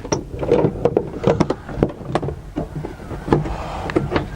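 Irregular metallic clicks and knocks of a hand tool working a bolt under a car's dashboard, a few strikes a second, with some rustling in between.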